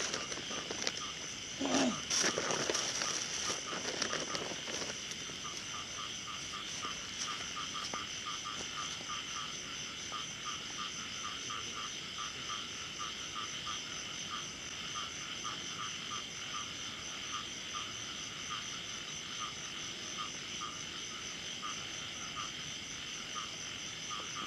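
Frogs calling in a steady chorus, a regular pulsing call of about two pulses a second over a steady high-pitched trill. A brief rustling noise about two seconds in is the loudest moment.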